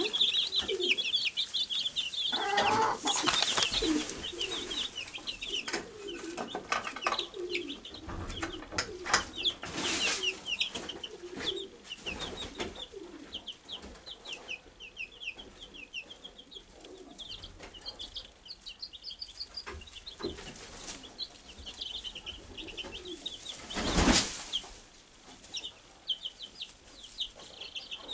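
Wyandotte bantam chicks peeping, many rapid high chirps from the flock, with scattered rustles and clicks in the straw bedding. The peeping thins out in the middle and picks up again, and one loud brief rustle or bump comes near the end.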